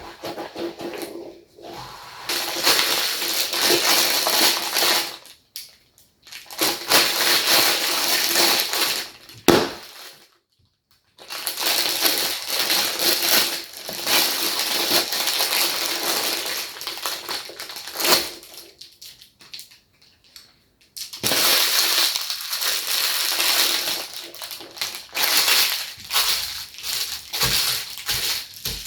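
A squishy toy ball being squeezed and kneaded by hand, giving a dense, grainy crackle in four long bouts with short pauses between them.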